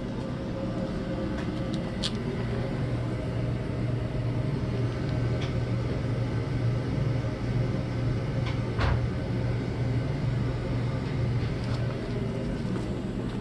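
Steady low mechanical hum and rumble of running machinery, with a few faint clicks and a sharper tick about nine seconds in.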